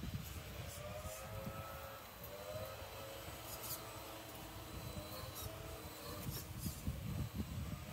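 6x6 RC crawler's Holmes Hobbies CrawlMaster Sport 550 13T brushed motor and geared drivetrain whining, the pitch gliding up and easing off with the throttle, over irregular crunching and a few short scrapes from the tyres on the course.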